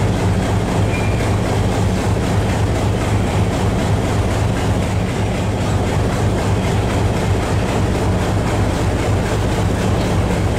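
Passenger train coaches rolling along the track: a steady, loud rumble with a low hum underneath.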